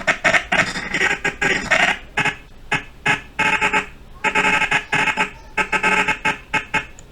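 A man's recorded dialogue line from the animation's audio track ('I am that man') played back in short, choppy, stuttering fragments, repeated several times, as when the timeline is scrubbed with audio scrubbing on.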